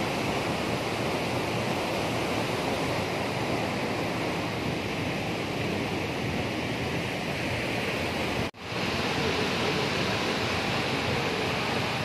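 Waterfall and rocky stream rushing: a steady, even roar of falling and flowing water. It cuts out sharply for a moment about two-thirds of the way through, then comes back.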